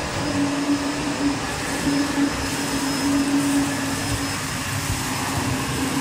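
SEBO Felix upright vacuum cleaner running steadily on full suction over a tiled hard floor with its roller brush switched off, a constant motor whine over the rush of air.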